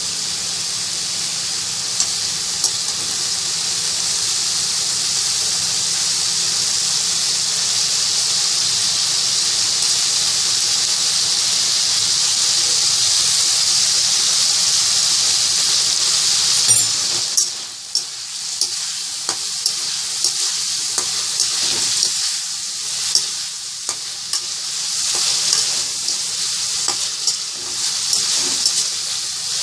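Chicken pieces with spice paste and green chilies sizzling in hot mustard oil in a kadai: a steady frying hiss. About halfway through the sizzle thins and is broken by frequent small clicks and crackles as the mixture is stirred in the pan.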